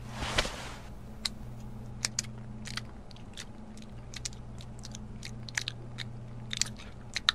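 A person chewing a piece of chocolate candy: a short noisy bite near the start, then scattered wet, sharp mouth clicks at an irregular pace. A faint steady low hum sits underneath.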